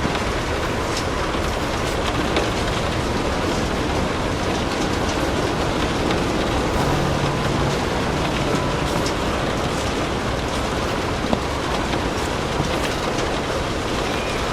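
Steady rain with the soft crackle of a fireplace, a few faint pops every second or so over an even rushing hiss.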